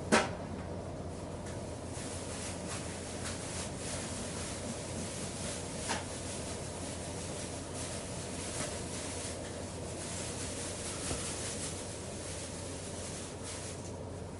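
Steady low hum and room noise, with one sharp click at the very start and a few faint clicks and rustles later on.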